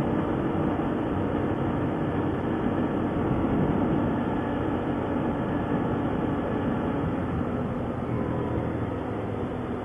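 ATV engine running steadily during a ride, getting a little quieter near the end.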